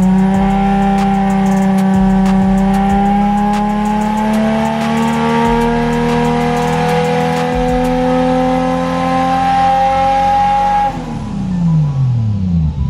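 Single-turbo Toyota JZX100 Mark II straight-six on a hub dyno, run under load in a pull: a loud, steady exhaust note whose pitch climbs slowly. About eleven seconds in the throttle closes and the revs fall away.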